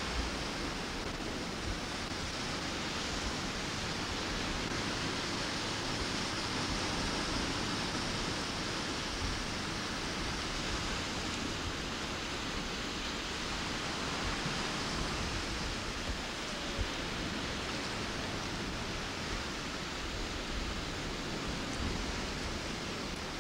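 Steady rush of wind and small waves breaking on a sandy shore, with gusts buffeting the microphone as a low rumble.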